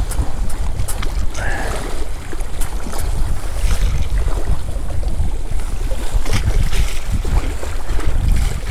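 Strong wind buffeting the microphone in a steady low rumble, with choppy sea water lapping below, and a few light clicks of fishing tackle being handled while a lure is clipped on.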